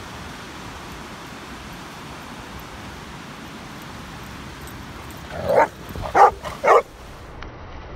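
A dog at play barks three times in quick succession, about five and a half seconds in, over a steady background hiss.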